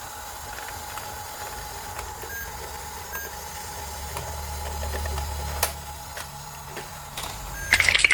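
A small electric motor hums steadily with a few faint short beeps. There is a sharp click about five and a half seconds in, and a louder rattling noise starts near the end.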